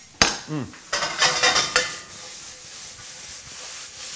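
Clatter of food and a utensil in a pan about a second in, then a steady sizzle as food starts frying in a hot stir-fry pan.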